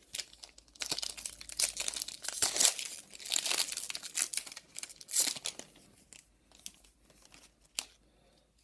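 Foil wrapper of a Magic: The Gathering collector booster pack being torn open and crinkled. It is a dense crinkling for about five seconds, then softer handling with a single sharp click near the end.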